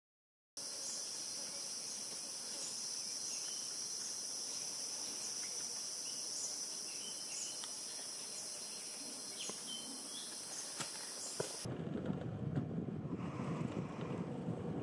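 A continuous high-pitched chorus of forest insects, steady in pitch and level, with a few short faint chirps over it. About eleven and a half seconds in it cuts off suddenly, and a steady lower-pitched rushing noise takes its place.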